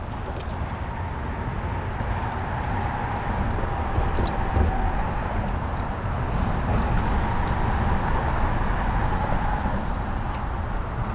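Steady drone of road traffic: a low rumble with a constant, slightly wavering hum running through it, and a few faint ticks.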